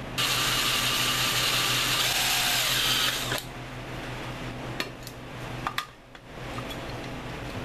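DeWalt cordless power tool running for about three seconds with a loud, even, hissing whirr, then cutting off abruptly. A few sharp clicks and knocks follow as it is handled.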